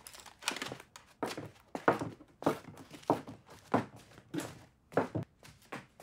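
Footsteps of a man and a small child walking across bare wooden floorboards, one step about every half second or so in an even rhythm.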